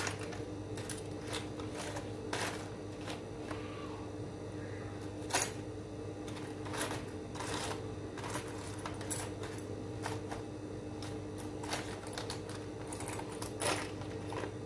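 Metal bag hardware (buckles, rings and connectors) clicking and clinking irregularly as hands rummage through a plastic tray, over a steady low hum.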